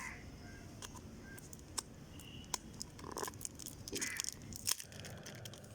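A 6 by 6 inch pack of patterned paper sheets being handled: faint rustling with scattered light clicks.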